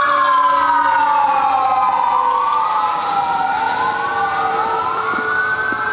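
Siren-like wail in the runway soundtrack: several layered tones sweeping slowly down and then back up, like a fire-engine siren.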